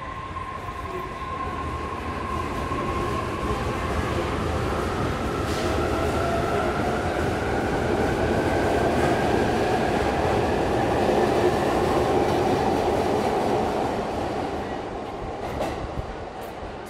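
Narita Express E259-series electric train pulling away from the platform, its traction motors whining in two tones that rise slowly in pitch as it gathers speed, over the rumble of wheels on the rails. The sound swells to its loudest about two-thirds of the way through, then fades as the train goes away, with a few sharp clicks near the end.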